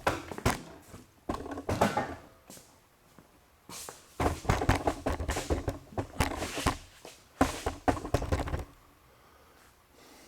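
Irregular knocks, thumps and rustling handling noises, in two busy stretches: in the first two seconds, and from about four seconds in to near the end.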